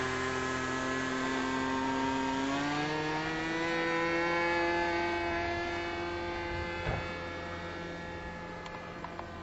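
OK model Supra Fly 25 radio-controlled pattern plane's small model engine running in flight, a steady buzz whose pitch climbs a little about two and a half seconds in and then holds, growing fainter toward the end.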